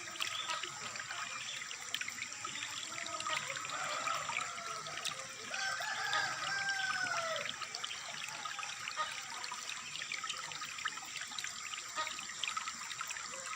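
Water trickling and splashing steadily, with a few short rising-and-falling tones in the middle.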